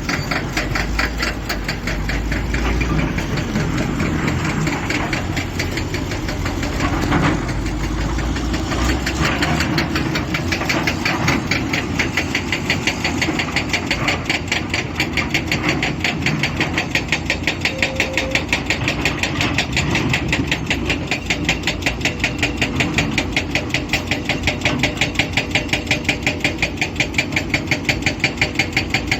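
Heavy diesel engine of quarry earthmoving machinery running steadily, with an even, rapid knocking pulse.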